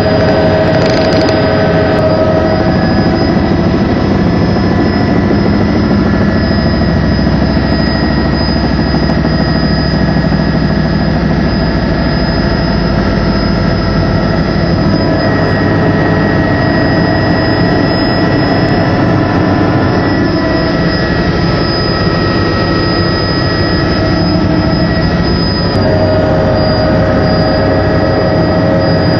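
Helicopter's turbine engine and rotor running steadily in flight: a constant loud drone with a high, steady whine over it.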